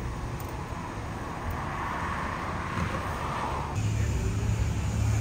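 Vehicle noise; a steady low engine hum comes in abruptly near the end.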